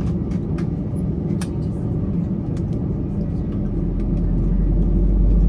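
Airliner cabin noise: steady low rumble of the engines and the aircraft moving on the ground, with scattered light clicks and rattles. About four seconds in, a deep low rumble swells and the noise grows louder.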